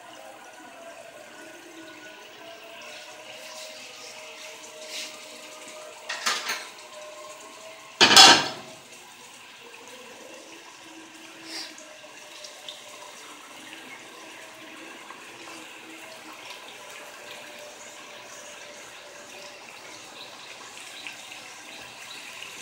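Water dripping and trickling into a pot as boiled turnip pieces are squeezed by hand to press out their water. A short, louder noise comes about eight seconds in, with a smaller one just before it.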